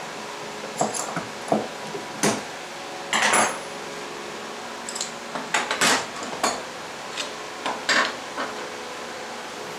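Wooden handscrew clamps, a wooden stop block and hand tools being handled and set down on the table saw's steel top: a string of irregular knocks and clatters, with a short scrape about three seconds in.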